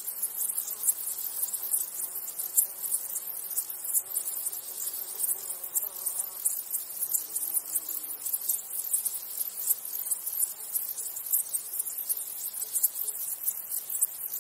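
Grasshoppers chirring: a dense, fast, high-pitched pulsing that runs on steadily. A faint lower buzz rises and fades around the middle.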